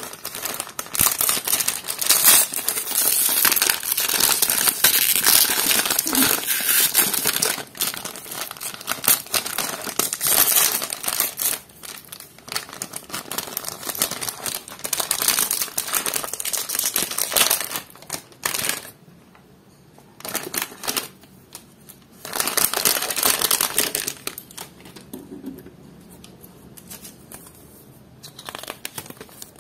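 Foil blind-bag wrapper crinkling and crackling as hands tear it open, in long loud spells with short lulls between them; the handling goes quieter near the end.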